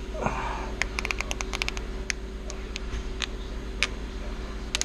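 Light clicks and taps of hand tools and metal parts being handled: a quick run of about eight clicks about a second in, then scattered single clicks, over a steady low hum.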